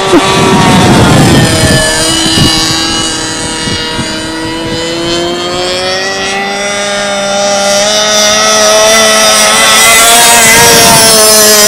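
Engine of a remote-control P-51 Mustang model plane running in flight; its note dips about four seconds in, then climbs and holds steady and louder. The pilot puts the lack of top speed down to the carburetor not being right, so it won't reach full throttle. Wind buffets the microphone in the first couple of seconds.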